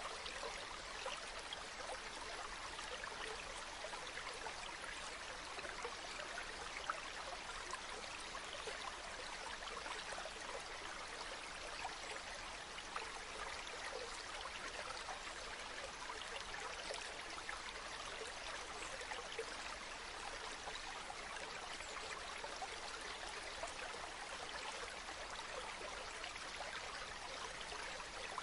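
Stream water running and splashing over rocks: a steady rushing with fine bubbling.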